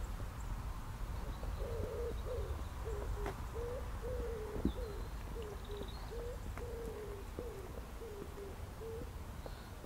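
A pigeon cooing: a long run of low, repeated coos that starts about a second and a half in and stops near the end. Faint chirps of small birds and a low steady rumble lie underneath.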